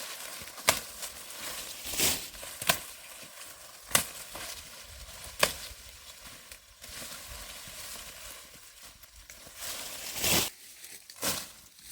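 Dry corn stalks and leaves rustling, with sharp snaps every second or two as ears of corn are broken off the stalks.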